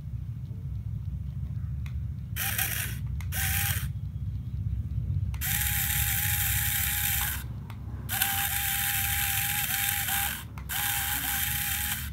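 Small electric motor in a homemade toy tractor whirring through its plastic gear train. It is switched on and off in five bursts: two short ones, then three of about one to two seconds each.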